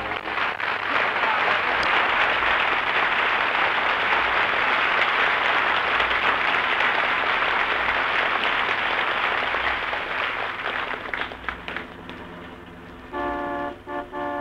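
Studio audience applauding, the clapping thinning out and dying away around ten to twelve seconds in. Near the end a car horn sound effect honks in a few short toots, the horn of the taxi in the radio sketch.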